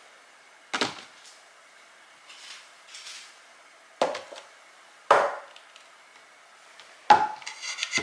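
Clear plastic refrigerator storage trays and a wooden cutting board set down and handled on a tiled tabletop: four sharp knocks, about a second in, at about four and five seconds, and near the end, with light handling rustle between.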